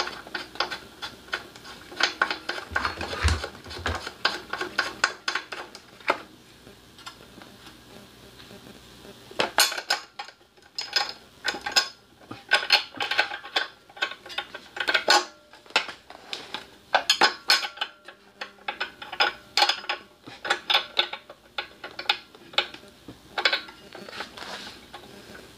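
Repeated light metallic clicking and clattering of hand tools and metal parts as a small portable generator is put back together, including a wrench working on the spark plug. There is a quieter lull from about 6 to 9 seconds in.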